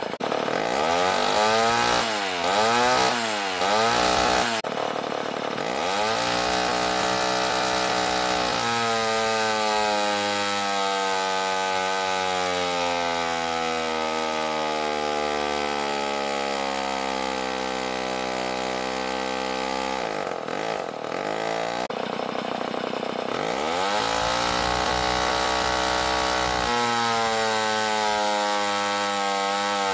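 Homelite C7 80cc two-stroke chainsaw engine running on a dynamometer: blipped up and down a few times, then held at full throttle while its pitch falls slowly over about ten seconds as the dyno loads it down. It drops back near twenty seconds, revs up again, and starts a second slowly falling pull near the end.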